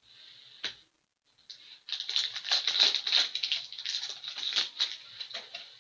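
Hockey trading cards being slid and flipped through the hands, a dense run of quick rustling clicks that starts about two seconds in.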